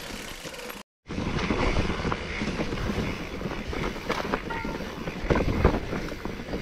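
Wind buffeting the microphone over a jumble of irregular knocks and rattles, cut by a brief total dropout about a second in.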